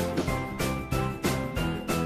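Background music with a steady beat and a melody of short high notes stepping up in pitch.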